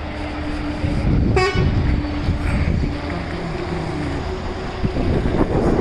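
Road vehicle running with a steady low rumble, and one short horn toot about a second and a half in.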